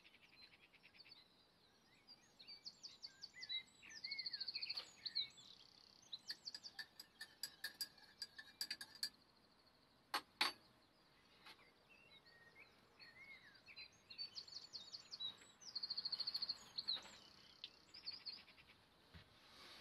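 Faint songbird singing outside, a phrase of quick chirps ending in a rapid trill, repeated twice. A single knock sounds about ten seconds in.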